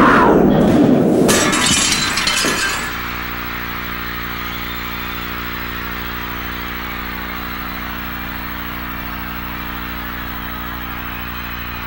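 Stage pyrotechnic blast with crackling sparks, dying away over the first three seconds. Then a steady low droning tone holds under the continuous noise of a cheering stadium crowd.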